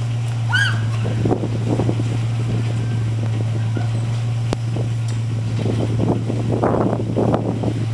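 A steady low hum with wind buffeting the microphone, broken by scuffling noises, a short squeak under a second in and a sharp click about halfway through.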